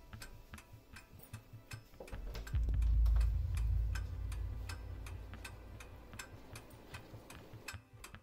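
Clock ticking quickly and evenly, over a deep low rumble that swells in about two seconds in and slowly fades. Near the end everything drops away briefly.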